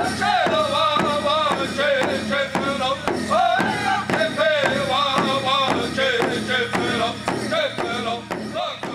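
Powwow drum group singing together in strong, wavering voices over a steady, evenly struck drumbeat.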